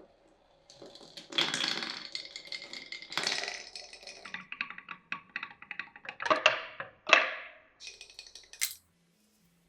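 Glass marbles rolling and clattering through a wooden marble run: a busy run of rattling clicks and rolling sounds with several sharp knocks. It stops after a final knock near the end.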